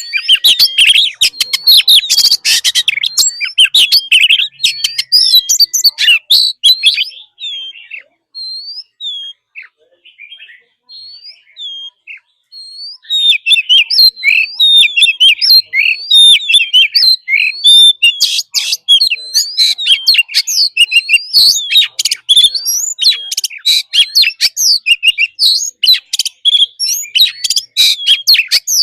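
Oriental magpie-robin singing a loud, varied song of rich whistles, slurred notes and rapid chattering phrases. About a third of the way in it thins to a few scattered whistles for several seconds, then bursts back into dense, continuous song.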